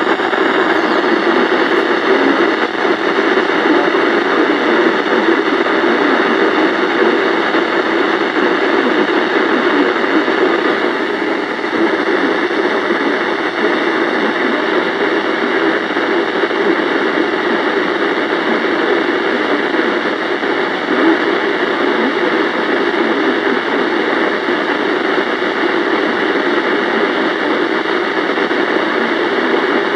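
Weather radio receiver hissing steady static, with no broadcast coming through: the NOAA Weather Radio signal has been lost.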